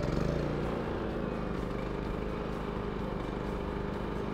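Champion 3100/3400-watt dual fuel inverter generator's single-cylinder engine running steadily just after an electric start.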